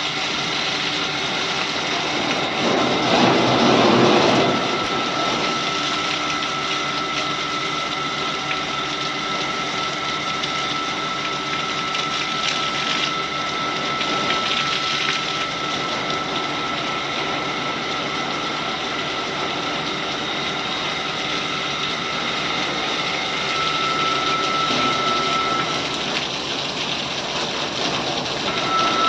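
Pump-fed water jet spraying onto a floodlight during an IP65 water-jet test: a steady hiss of spray with a steady motor whine, swelling louder for a moment about three seconds in.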